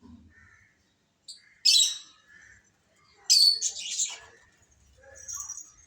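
Pet lovebirds giving shrill, sharp chirps in a few short bursts. The loudest cluster comes about halfway through, and a softer call follows near the end.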